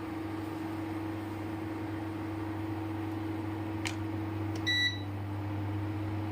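Steady electric hum of a kitchen appliance, with a click near four seconds and a short electronic beep just before five seconds, after which the hum settles slightly lower in pitch, as when a setting is changed.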